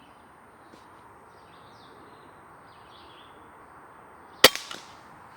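A single air gun shot, a sharp crack about four and a half seconds in, followed by a couple of smaller knocks, with birds chirping faintly in the background.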